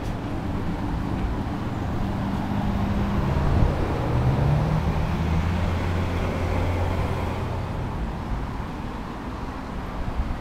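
Road traffic: a steady low rumble with a vehicle's engine hum that shifts in pitch through the middle and eases off after about seven seconds.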